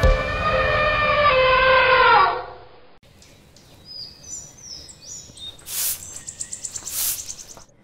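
Cartoon intro jingle ending with a falling slide that fades out, followed by cartoon birds chirping and tweeting in short high calls, with two short swishes about six and seven seconds in.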